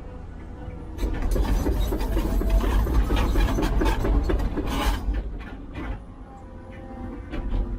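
A heavy construction machine at work: its engine runs steadily, with a stretch of loud scraping and clattering from about one second in to about five seconds.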